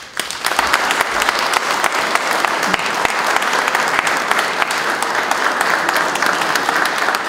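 Applause: many people clapping, starting suddenly and holding steady.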